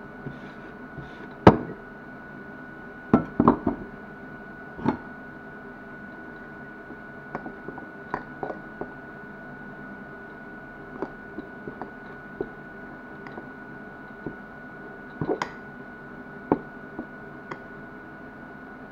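Irregular knocks and clinks of a fork against a glass mixing bowl as its contents are stirred by hand, with the bowl bumping on the table; the loudest knocks come about one and a half seconds in and again around three seconds in.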